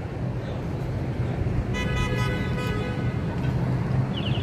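Steady low hum of city street traffic. A vehicle horn sounds once, about two seconds in, and holds a steady note for just over a second.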